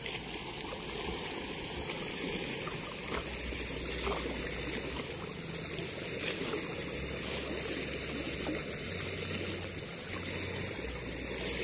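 Steady wash of flowing river water around a man wading waist-deep.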